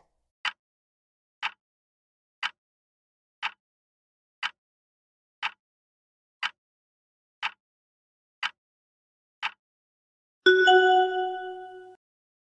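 Quiz countdown-timer sound effect: ten short ticks, one each second, then a louder bright chime with a ringing tone that fades out, the signal that time is up and the answer is revealed.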